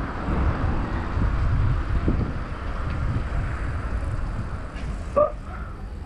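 Wind rumbling on the microphone of a moving bicycle ride, with a short high-pitched sound about five seconds in.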